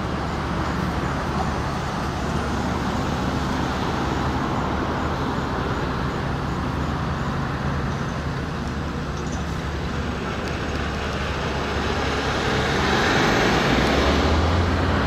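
Road traffic: cars driving past on a roadway in a steady wash of tyre and engine noise, with a deeper, louder vehicle rumble building from about two seconds before the end.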